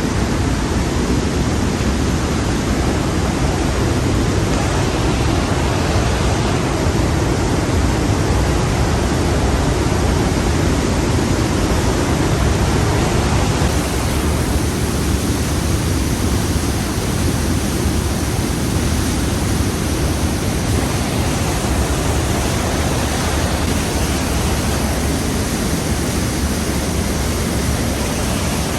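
Trümmelbach Falls' glacial meltwater cascades: a loud, steady rush of falling water, its tone shifting slightly about halfway through.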